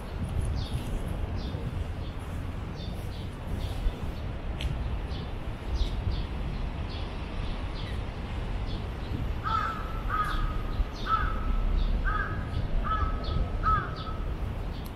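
A crow cawing six times in a row, roughly a second apart, starting a little past halfway, over a steady low rumble.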